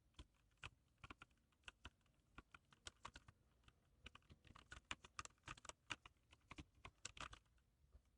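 Keys of a Z-88 keyboard being typed on: quick, irregular clicks, several a second, stopping shortly before the end.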